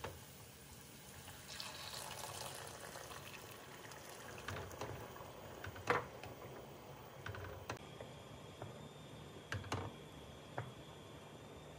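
Hot water poured into a pot of rice and orzo, a rush of water lasting a couple of seconds, then a wooden spoon stirring the rice through the water, knocking against the pot several times.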